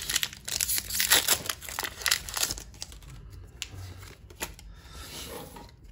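Foil wrapper of a Pokémon trading card booster pack being torn open and crinkled, loud and crackly for the first couple of seconds. Quieter rustling and clicks follow as the cards are drawn out.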